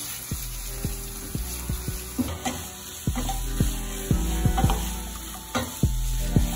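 Chopped prawns, garlic and onion sizzling in hot oil in a nonstick frying pan, stirred with a wooden spatula that knocks against the pan a dozen or so times at an uneven pace. The prawns are sautéing until they turn pinkish orange.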